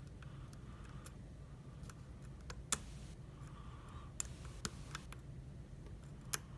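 Small metallic clicks and ticks of a hook pick working the pin stack inside a Carl F euro cylinder lock, scattered and irregular, with a few sharper clicks about a third of the way in, twice around two thirds, and near the end. A steady low hum runs underneath.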